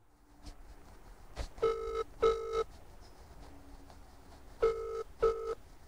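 Phone ringback tone through a smartphone's speakerphone: two double rings, about three seconds apart, the call ringing and not yet answered.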